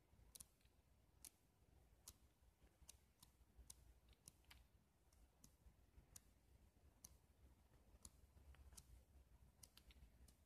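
Near silence, broken by faint, sharp small clicks that come irregularly, about one or two a second.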